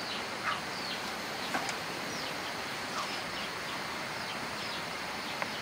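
Outdoor ambience of birds calling: repeated short falling chirps, roughly two a second, over a steady hiss, with a faint click about one and a half seconds in and another near the end.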